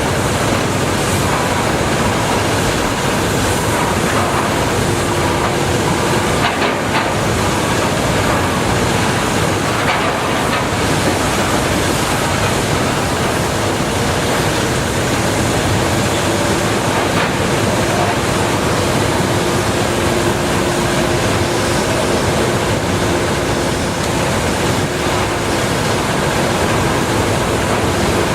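Caterpillar 320D L excavator working in clay: its diesel engine and hydraulics run loud and steady under load. A faint steady whine sits over the noise from a few seconds in.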